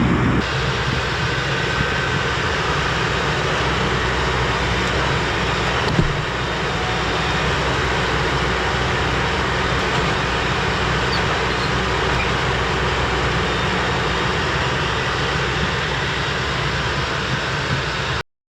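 Diesel tractor engine running steadily, with one sharp knock about six seconds in; the sound cuts off suddenly near the end.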